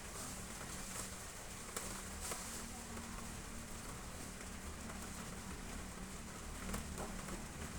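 Rain falling on roof tiles: a steady hiss with scattered sharp ticks of drops striking.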